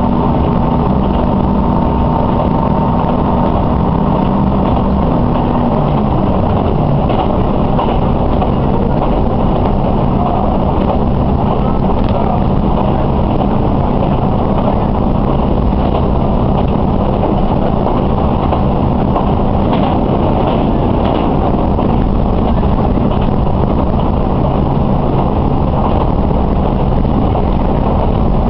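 Diesel railcar running, heard from inside the passenger cabin: a steady engine drone over rolling running noise. The engine note drops in pitch about six seconds in, then holds steady.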